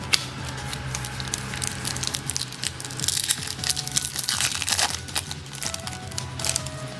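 Baseball card pack wrapper crinkling and cards being handled and slid against each other, with many sharp clicks and rustles, busiest in the middle.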